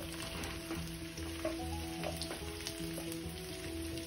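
Chopped chayote sizzling in a hot wok with onion, garlic and dried fish as it is tipped in and stirred, with a few light knocks against the pan. Soft background music with held notes runs underneath.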